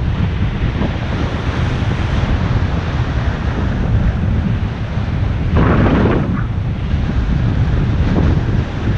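Wind buffeting an action camera's microphone on a moving bicycle, a loud, steady rumble. A stronger rush of noise comes about five and a half seconds in and lasts well under a second.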